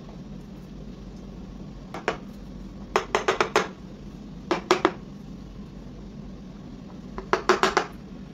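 Footed glass dessert cups clinking and knocking as they are handled, in several short runs of quick, slightly ringing clicks.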